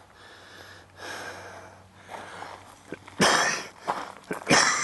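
A person breathing out hard through the nose close to the microphone, two loud breaths about three and four and a half seconds in, after a few seconds of faint hiss.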